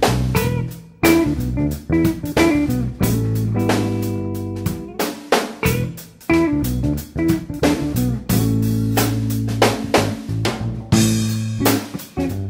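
Instrumental background music with guitar, bass and drums.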